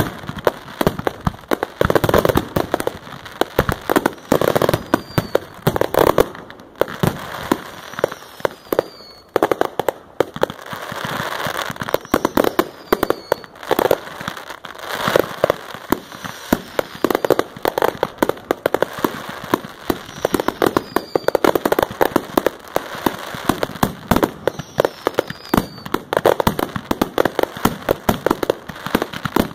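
Fireworks display: aerial shells bursting overhead in a dense, continuous barrage of sharp bangs, several a second, with crackling from the stars.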